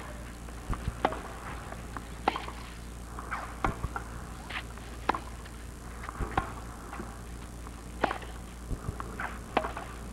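Tennis rally on a clay court: sharp pops of rackets striking the ball back and forth, about one every second or so, mixed with quicker knocks of shoes scuffing and sliding on the clay, over a low steady stadium background.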